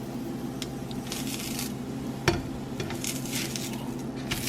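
Folded birria tacos with melting cheese and meat sizzling on a hot comal, crackling in patches, with one sharp knock about two seconds in, over a steady low hum.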